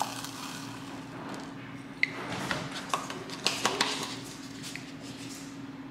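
Kitchen handling sounds as instant coffee is tipped from a jar into a plastic bowl and bottles are picked up from a granite counter: a few sharp clicks and taps, one about two seconds in and several around three and a half seconds, over a steady low hum.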